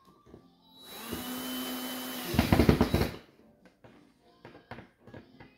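Cordless drill running for about two seconds, with a steady whine, as it drives a screw into a plywood board, ending in a louder rapid stutter in its last second as the screw bites and seats.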